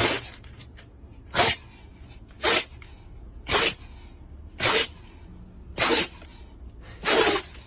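A Shiba Inu sneezing over and over, seven sharp sneezes about a second apart.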